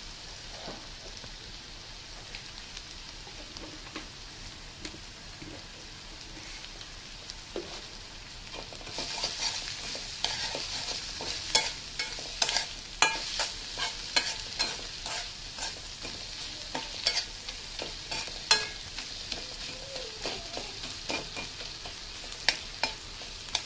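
Sliced onions and green chillies sizzling in oil in a metal karahi, a steady frying hiss. From about nine seconds in, a spatula stirs them, scraping and clicking against the pan, and the sizzle grows louder.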